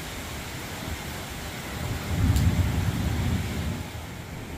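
Steady hiss of rain with a low rumble of thunder that swells about two seconds in and fades away over the next two seconds.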